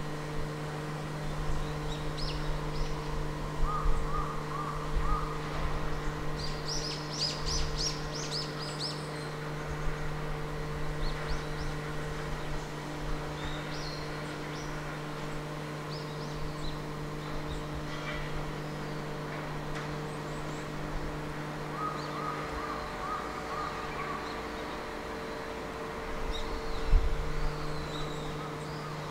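A steady low machine hum from the shipyard, its lowest part dropping away for a few seconds near the end, with small birds chirping now and then, most busily about seven seconds in.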